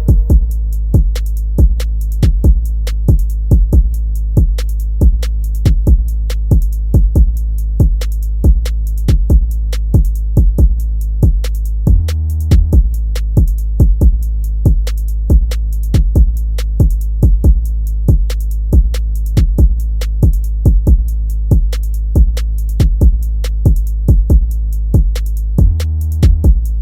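Instrumental hip hop beat: drum-machine hits at a steady pace over a sustained deep bass. The bass drops out briefly about twelve seconds in and again near the end.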